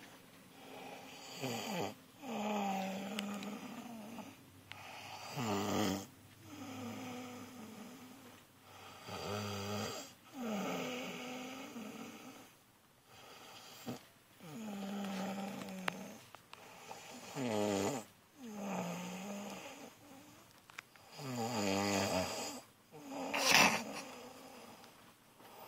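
Heavy snoring, a pitched, rasping snore every few seconds with the pitch bending within each one. One snore near the end is louder than the rest.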